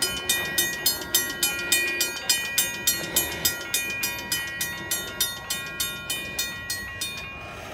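Railroad crossing warning bell ringing in a steady rapid series of strikes, about three a second, each ringing on. It signals an approaching train and stops near the end.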